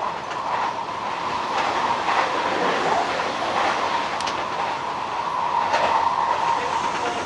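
Hanshin 1000 series electric train running at speed, heard from on board: steady rolling noise with a continuous high hum and a few sharp clicks from the rails.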